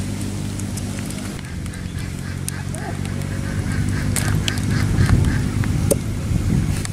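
A steady low hum with a rapid run of short quack-like animal calls, about four a second, in the middle. A few sharp clicks and knocks near the end as live catfish are shaken out of a green coconut into a plastic mesh basket.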